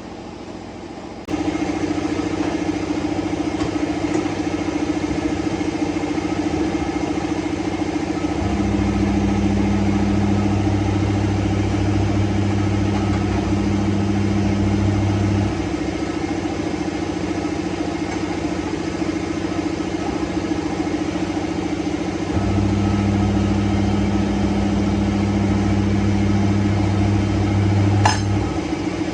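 A motor switches on abruptly and runs with a steady hum. Twice a deeper, heavier hum joins it for several seconds and then drops away. A sharp click comes near the end.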